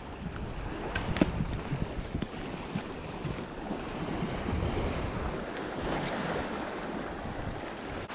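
Small lake waves washing against an icy, rocky shore, with wind buffeting the microphone as a low rumble. A few light clicks in the first few seconds.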